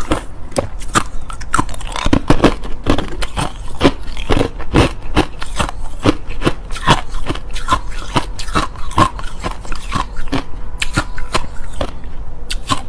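Hard, clear crushed ice being bitten and chewed up close, a rapid run of sharp crunching cracks, several a second.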